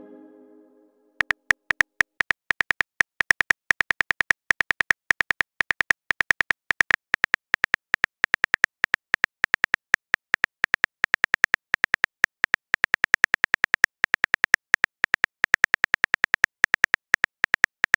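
Keyboard typing clicks from a texting-story app: a fast, uneven run of short, bright synthetic taps, several a second, starting about a second in. Before it, a pitched message chime fades out.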